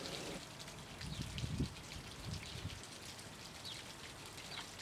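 Mains water running through a homemade PVC-pipe trompe, faintly pattering and trickling as the trompe draws air into the water and builds pressure. A few soft low rumbles come between about one and two and a half seconds in.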